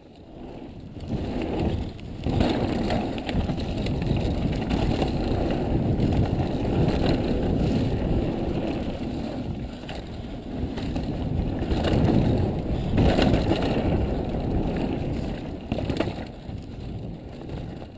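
Mountain bike ride down a dirt forest trail heard from the rider's camera: low wind rumble on the microphone and tyres rolling over the dirt, with a few sharp knocks and rattles as the bike hits roots and rocks. It fades in over the first two seconds.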